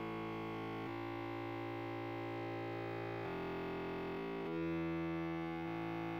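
Background music: slow, sustained chords that change every second or two.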